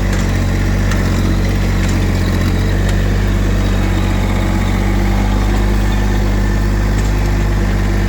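Subcompact Massey Ferguson tractor's diesel engine running steadily at an even speed, with a few faint clicks and rattles.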